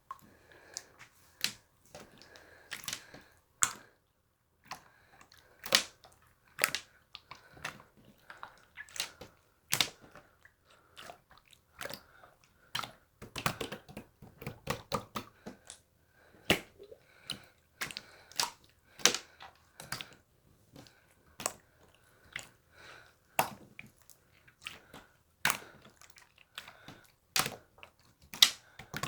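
Slime being squeezed and pressed by hand, making irregular sharp clicks and pops with soft squishing between them.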